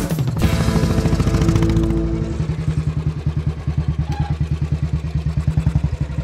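Royal Enfield single-cylinder motorcycle engine idling with an even, rapid pulse. The beat settles in about two seconds in.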